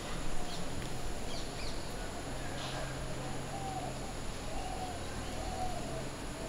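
Birds calling: a run of short, curved whistled calls mixed with brief high chirps, over a steady low hum.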